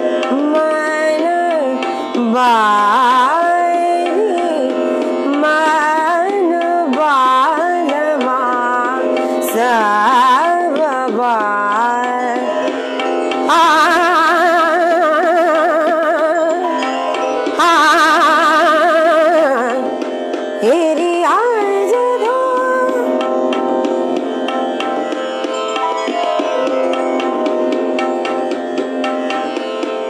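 A woman singing an Indian classical-style vocal passage with quick, ornamented runs and two long held notes with vibrato midway, over a steady drone and tabla accompaniment.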